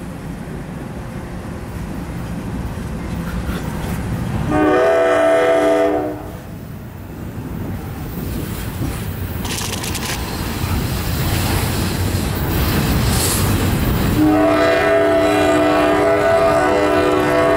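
Norfolk Southern double-stack intermodal train rolling past, its wheels rumbling and clattering on the rails. A locomotive air horn sounds a multi-note chord twice: a blast of about a second and a half about five seconds in, then a long blast starting a few seconds before the end.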